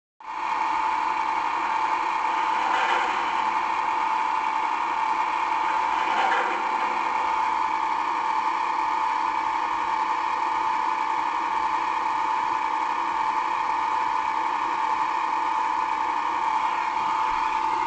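Locomotive engine running with a steady, even drone, with two brief swells of noise about three and six seconds in.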